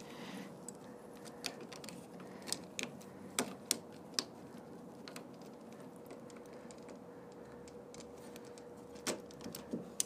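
Hands fitting a replacement exterior door handle and lock into a car door: scattered light clicks and taps of the handle parts, a handful in the first four seconds and a couple more near the end, over a faint steady hum.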